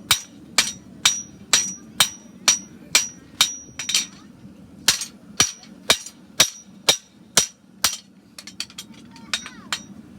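Farrier's hammer striking a steel horseshoe on an anvil, about two blows a second, the first several each ringing with a high tone. The blows pause for about a second and a half near the end, then start again.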